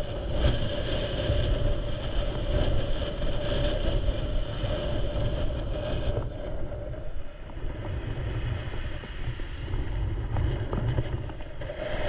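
Wind rumbling on the camera's microphone, with a steady hum underneath.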